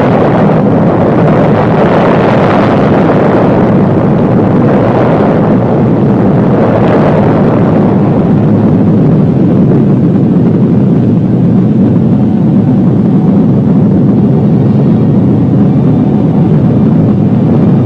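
Loud, continuous rumbling noise from the soundtrack for the atomic test blast. It swells twice in the first eight seconds, then settles into a steadier, deeper rumble.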